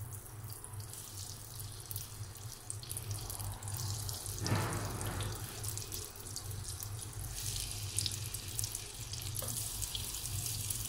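Melted butter sizzling and crackling in a hot nonstick frying pan as pieces of marinated chicken are laid in. The sizzle gets louder as the pieces go in, with a brief surge about four and a half seconds in.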